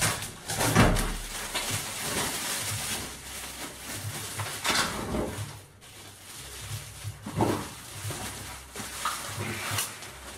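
Plastic wrapping rustling and a cardboard box being handled as a wet-and-dry vacuum cleaner is pulled out of it, with scattered knocks and a heavier thump about a second in.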